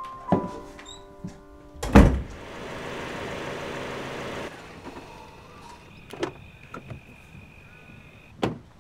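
A door slams shut with a loud thud about two seconds in as piano music dies away, followed by a steady rush of noise for a couple of seconds. Then come a few sharp, irregular clicks of footsteps, the last one near the end.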